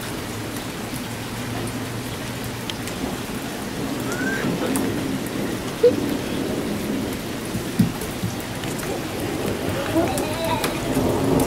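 Steady rain falling on the ground and surrounding surfaces.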